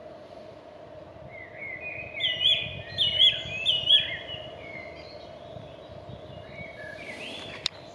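A songbird singing: a phrase of sweeping whistled notes that builds to the same upswept note repeated three times, about a second apart, then a quieter phrase near the end. A single sharp click sounds just before the end.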